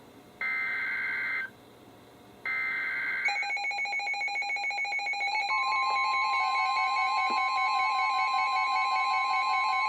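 NOAA Weather Radio SAME header data bursts: the last two of three, each about a second of buzzy two-tone warble with a second's gap between, encoding a flood warning. Then several weather radios' alert alarms start together in a rapid pulsing beep, and about two seconds later the steady 1050 Hz warning alarm tone joins in.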